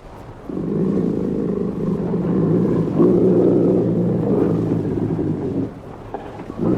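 Loud, low rumbling drone with a growl-like, roar-like quality, coming in long swells; it fades out about five and a half seconds in and swells back just before the end.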